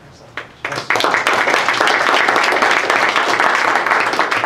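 Audience applauding. A couple of scattered claps come first, then full, dense applause sets in about a second in.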